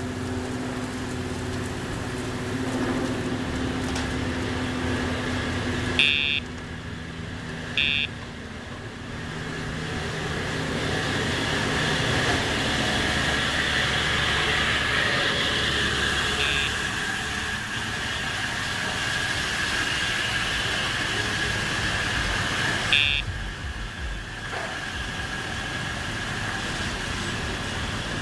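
Steady parking-lot traffic noise. Short high electronic beeps sound four times at intervals: two close together, then a faint one, then a last one. These are the tone of the dog's Dogtra sound-box training collar, used as the pager cue with each command.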